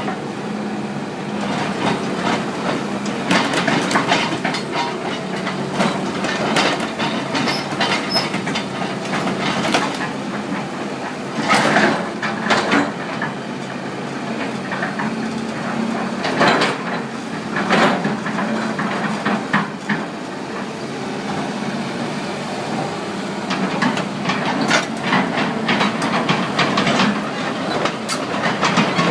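Hitachi EX200-5 excavator's diesel engine running steadily, with repeated sharp metallic knocks and clanks at irregular intervals.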